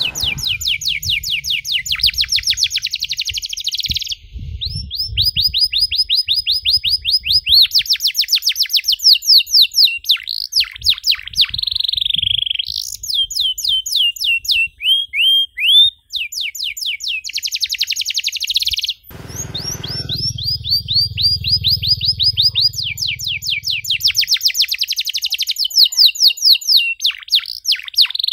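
Domestic canary singing a long song: fast trills of rapidly repeated notes and rolling phrases, changing from one phrase to the next with brief pauses. A low hum sits underneath for a few seconds past the middle.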